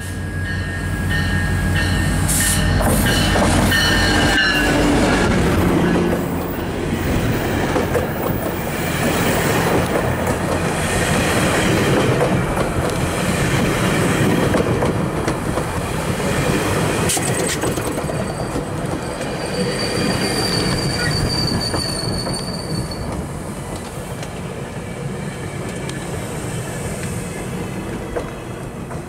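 MP40 diesel locomotive passing close in the first few seconds, followed by a train of bilevel passenger coaches rolling by as it slows into a station. The wheels rumble with occasional sharp clacks over rail joints, and a thin high wheel squeal comes in about two-thirds of the way through. The sound eases off toward the end as the train slows.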